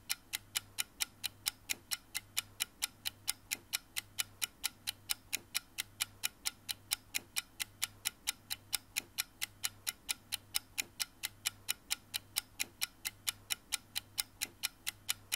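Even, clock-like ticking, a few sharp ticks a second at a steady pace, over a faint low pulsing tone: an end-screen ticking sound effect.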